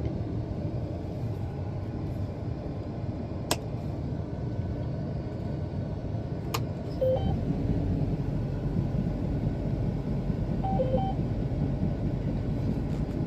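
Combine running with a steady low rumble, with two sharp clicks and short electronic beeps from the cab, two about 7 seconds in and two more near 11 seconds. The beeps come as the header keeps cutting out, with the return-to-cut clicking off.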